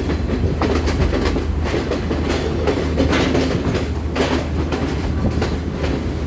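Passenger train running along the track: a steady low rumble with the wheels clacking over rail joints.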